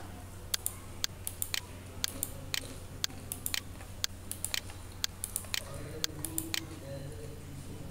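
Computer mouse and keyboard clicking in quick, irregular clusters of sharp clicks, over a steady low hum.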